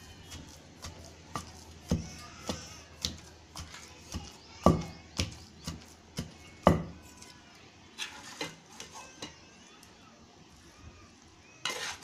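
Pestle pounding gongura leaves and red chillies in a stone mortar: dull knocks about two a second, the two loudest around five and seven seconds in, stopping after about nine seconds.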